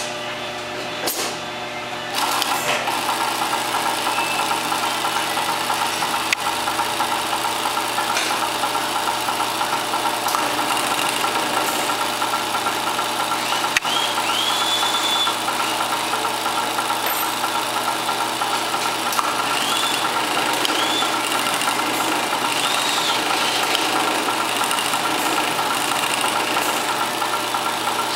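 Nick-O Sew NKS-1342-7 single-needle walking-foot cylinder-arm industrial sewing machine stitching through a fabric tube. It starts about two seconds in and then runs steadily, with a few sharp clicks along the way.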